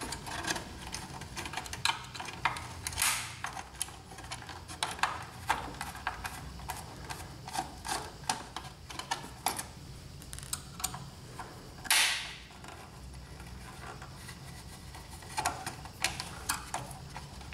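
Small screwdriver working out the screws of an inkjet printer's main board: a run of small clicks and ticks from the tool on the screws and board. Two louder scrapes come about three seconds in and about twelve seconds in.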